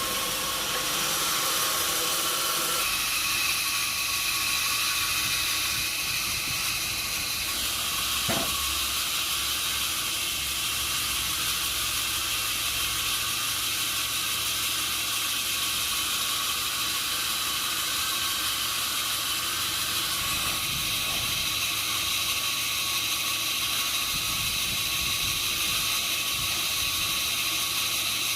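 Sawmill machinery running steadily, a constant hiss with a high whine, with one sharp click about eight seconds in.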